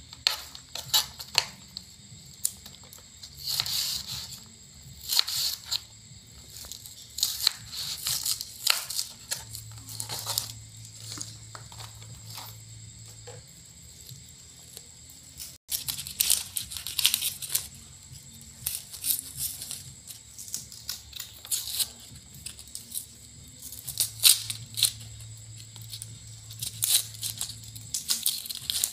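Crisp napa cabbage being sliced with a small knife and broken apart by hand on a plastic cutting board: irregular crunches, snaps and knife taps. Near the end come the crinkle of a plastic bag and papery onion skin. A low hum comes in twice.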